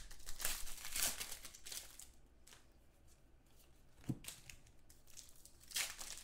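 Plastic trading-card pack wrappers and cards rustling and crinkling as they are handled, with a few tearing scrapes. There is a soft knock about four seconds in.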